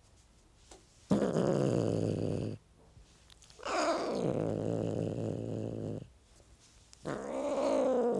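Domestic cat growling and yowling in three long drawn-out calls, the middle one the longest and sliding down in pitch as it begins.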